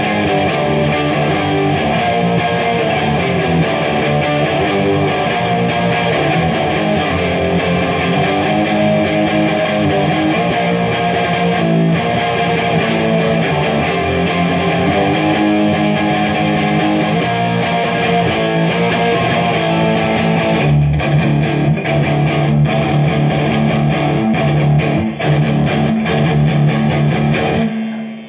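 Electric guitar playing a continuous run of notes. About three-quarters of the way through, it settles into a held low note with short breaks, then stops just before the end.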